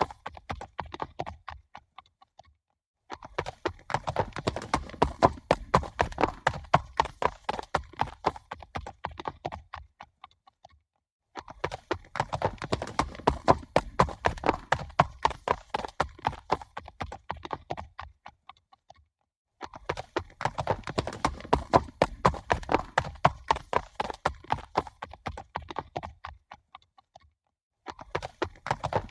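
Horses galloping: a rapid, dense drumming of hoofbeats that fades away over about eight seconds, stops for about a second, and starts again loud, repeating three times.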